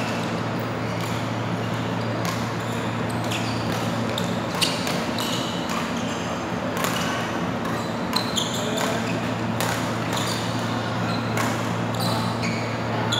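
Badminton rally: rackets striking the shuttlecock in sharp, irregular pops, the loudest about a third of the way in, with shoes squeaking on the court floor. A steady low hum runs underneath.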